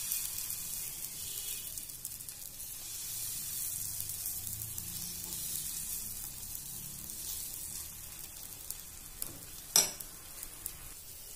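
Thin besan chilla batter sizzling in hot oil on a non-stick pan as a steel ladle spreads it in circles, a steady hiss that eases a little as the batter settles. A single sharp click sounds near the end.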